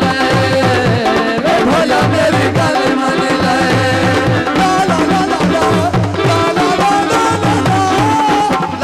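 Live Punjabi folk music: a steady hand-drum rhythm under a wavering melody line.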